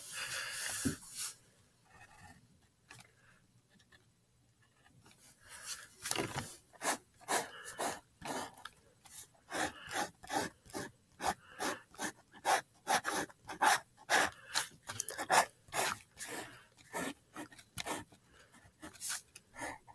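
Drawing strokes scratching across notebook paper close to the microphone. They are sparse for the first few seconds, then come as quick, irregular strokes several times a second.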